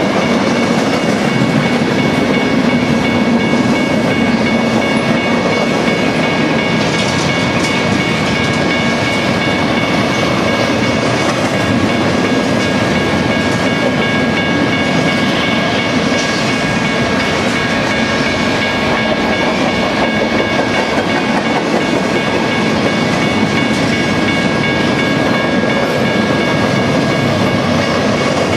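Empty intermodal well cars of a freight train rolling steadily past: continuous wheel-on-rail noise, with a steady high-pitched ring throughout.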